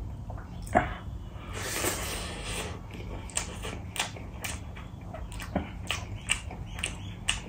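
A person chewing a mouthful of rice mixed with tomato chutney, close to the microphone, with irregular sharp clicks and a soft rushing sound about two seconds in.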